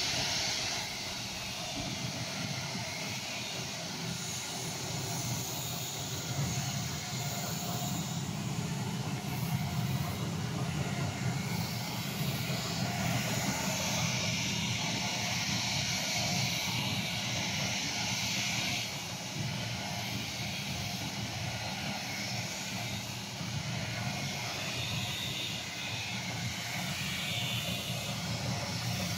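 18-inch two-roll rubber mixing mill running: a steady mechanical hum from its drive with a hiss above it, the hiss growing stronger for a few seconds in the middle.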